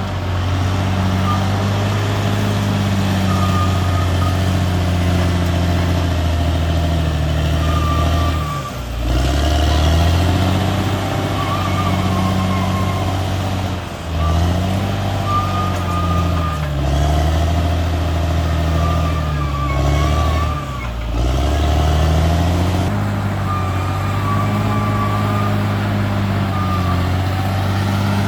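CAT D6R XL bulldozer's diesel engine running hard, its pitch sagging and recovering about four times as it is loaded and then picks up again.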